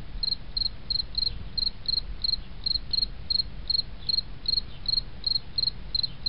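Insect chirping in an even rhythm, about three short high chirps a second, over a low steady rumble.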